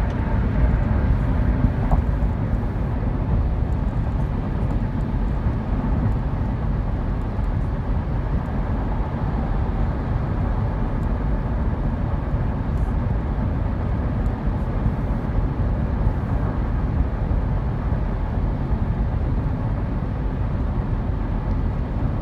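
Steady freeway traffic noise: a low, even rumble of tyres and engines from the passing cars.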